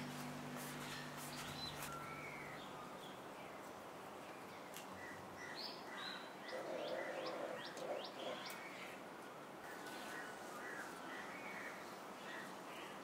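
Birds chirping and calling in the background, faint. A few sharp clicks and a brief rustle about seven seconds in, from pruning shears snipping ivy stems and the leaves moving.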